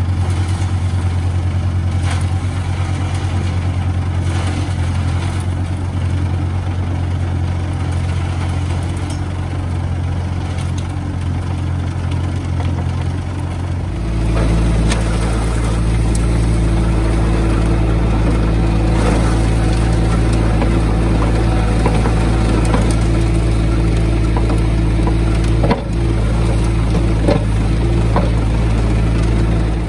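CZ Screen PIKO vibrating screen running with a steady low hum, mixed with the compact loader's engine running as soil is tipped onto the mesh. About halfway through the hum turns deeper and stronger.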